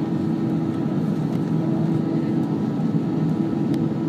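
Steady drone of a jet airliner's engines at taxi power, heard inside the passenger cabin, with a constant low hum.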